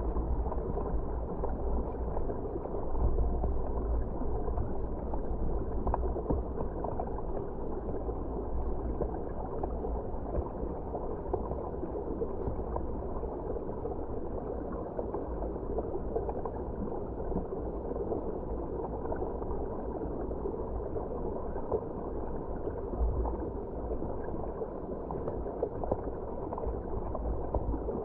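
Stream water flowing past a camera held underwater: a steady, muffled rushing and gurgling with a deep low rumble.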